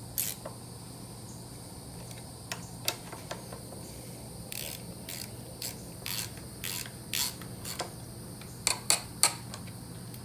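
Irregular metal clicks and light knocks from a hand wrench tightening the bolts of an aftermarket shifter's adjustable mount, with the sharpest three near the end.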